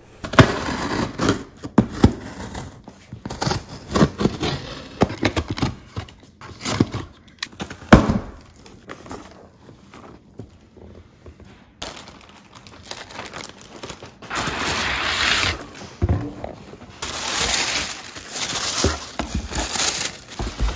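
A cardboard shipping box being unpacked by hand: scrapes, knocks and thuds as items are lifted out and set down, with longer stretches of crinkling packing material near the end.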